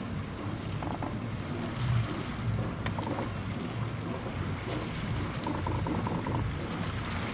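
Galeon 400 Fly's twin Volvo Penta D6 diesels running at idle, a low steady rumble, as the boat manoeuvres slowly off its berth.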